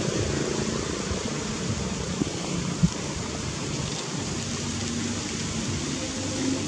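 Steady outdoor background hiss, with two light clicks a little over two seconds in and just under three seconds in.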